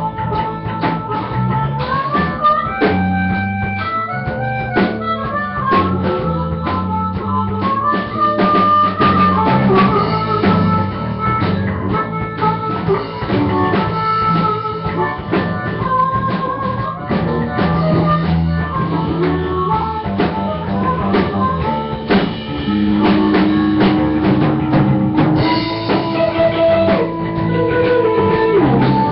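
Live blues-rock band playing: drum kit, electric guitars and bass under a lead of long, bending held notes from a blues harmonica.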